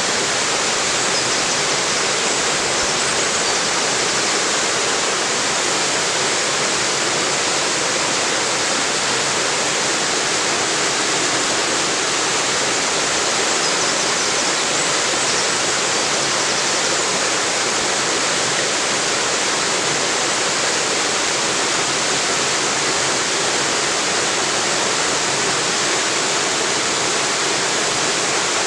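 Small river waterfall: water pouring over rocks in a steady, even rushing hiss.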